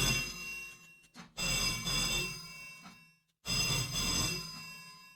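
Telephone bell ringing in repeated rings about two seconds apart, each starting sharply and fading away. A new ring comes about a second in and another a little past the middle, with the fading tail of an earlier ring at the start.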